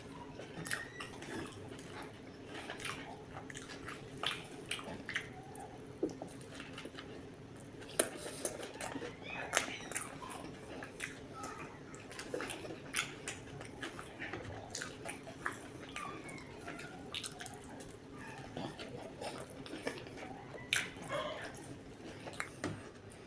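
Close-miked eating of a homemade patty burger: irregular bites, chewing and wet mouth smacks and clicks, over a faint steady hum.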